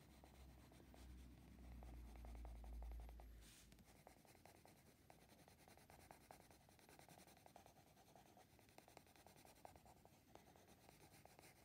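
Faint scratching of a Derwent Coloursoft coloured pencil shading on paper in quick, light strokes. A low rumble sits under it for the first three and a half seconds.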